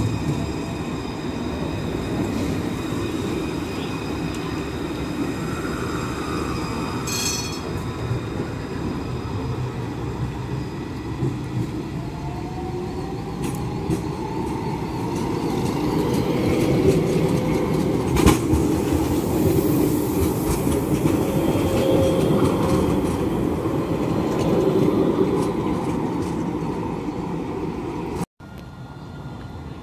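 Tram running on street track: a steady rumble with a rising motor whine about halfway through. It grows louder in the second half, with a sharp click a little past the middle, and drops off suddenly near the end.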